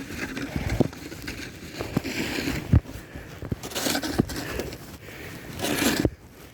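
Snow shovel scraping and pushing through fresh snow, with irregular crunches and knocks and two longer, louder scrapes, the louder one near the end.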